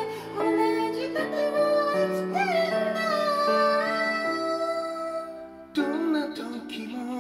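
Slow piano ballad accompaniment from a karaoke backing track with a singing voice: a long held note with vibrato, then, after a brief drop in level, a short further sung phrase over soft sustained piano chords.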